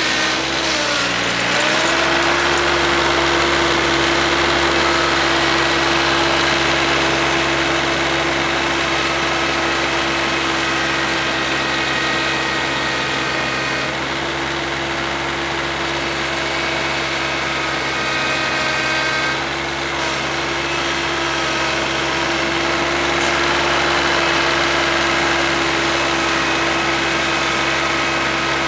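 Kioti CS2210 compact tractor's three-cylinder diesel engine running steadily at working speed, driving a PTO snowblower that is throwing snow. The engine's pitch dips briefly about a second in, then recovers.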